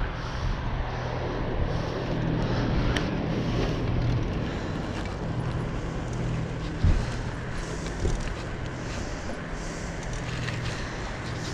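A vehicle on the move along a street, with road and wind noise over a steady low hum. There is a single sharp thump about seven seconds in, and a few lighter knocks.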